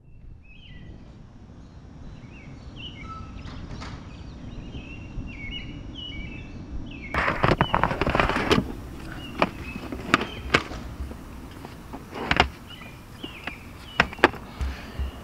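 Birds chirping for the first seven seconds or so, then a run of sharp knocks and clunks as a hard plastic case is slid and set down in a pickup truck's back seat.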